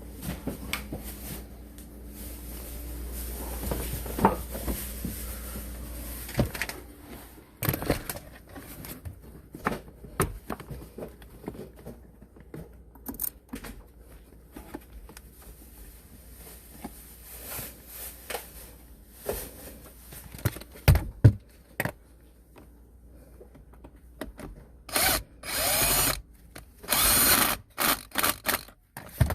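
Handheld power tool running in bursts while fastening bolts, with knocks and clinks of tools and metal parts in between. Near the end there are two longer runs in which the motor's whine bends in pitch.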